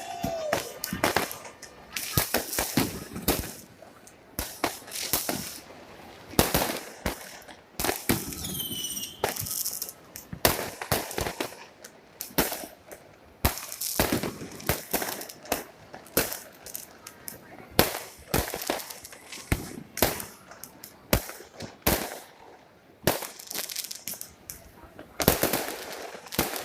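Fireworks going off in a dense, irregular series of sharp bangs and crackles, with a short high whistling glide about eight and a half seconds in.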